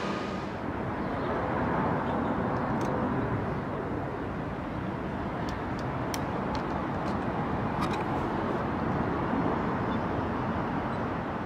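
Steady rumble of passing vehicles, with a few faint sharp clicks.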